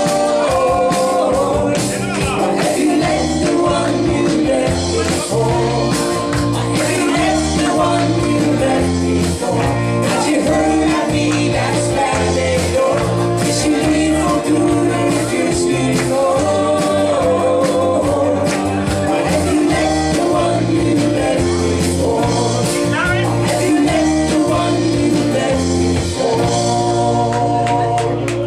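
Live country band playing: electric guitars, bass and drums, with a stepping bass line and steady drum beat, settling into a long held chord near the end.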